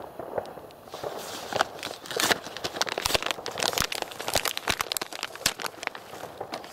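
Plastic wrapping crinkling and tearing as a boxed fireworks assortment is opened, a dense run of crackles starting about a second in.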